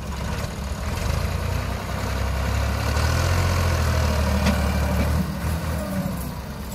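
Massey Ferguson 260 diesel tractor engine revving up under load to pull a trolley heaped with soil, growing louder over the first few seconds and easing off about five seconds in.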